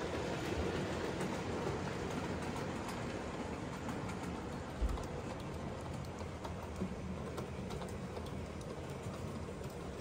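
00 gauge model train running along the track: a steady rumble of wheels and motor with faint ticks, and one low thump about five seconds in.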